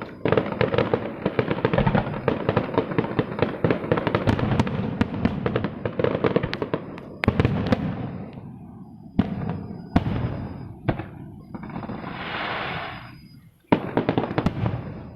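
Fireworks display: a dense barrage of rapid bangs and crackles for about seven seconds, then a few separate loud shell bursts. A hissing stretch comes after them, then one more sharp bang near the end.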